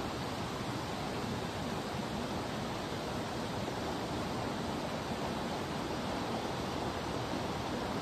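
Steady rush of water from a waterfall and its rocky stream: an even, unbroken hiss with no change in level.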